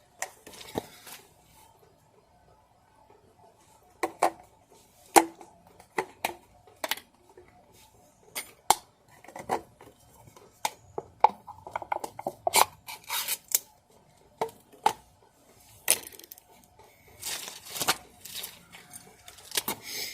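Hand-tool work noises: irregular sharp metallic clicks and clinks, with a few longer scraping or tearing sounds near the end.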